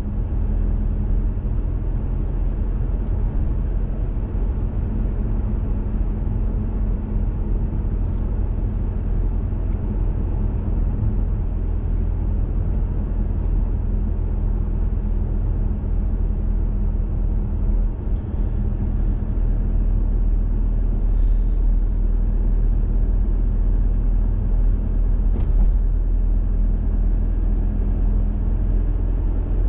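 Car driving at low speed, heard from a dashcam inside the cabin: steady low engine and road rumble, a little louder over the last third, with a few brief faint clicks.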